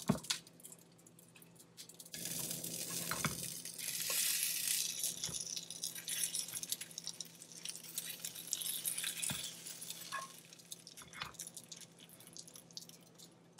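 Kitchen sounds: a sizzling hiss for several seconds through the middle, with a few light knocks and clinks as pan-fried dumplings are set down on a ceramic plate.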